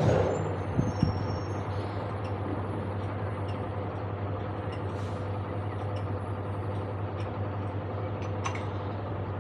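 Motorcycle engine idling steadily while stopped, with two sharp clicks about a second in.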